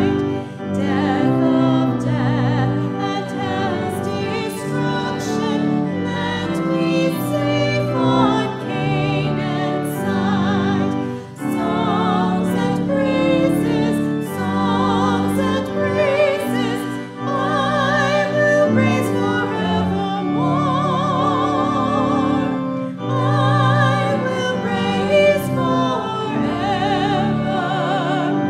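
Two women singing a hymn together with strong vibrato over a steady accompaniment that holds long low notes, phrase after phrase with brief breath pauses.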